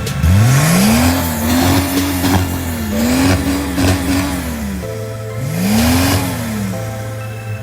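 Supermoto motorcycle engine revving hard: it climbs sharply at the start, holds high revs with a few short dips, drops back about five seconds in, then revs up and falls once more. Music plays faintly underneath.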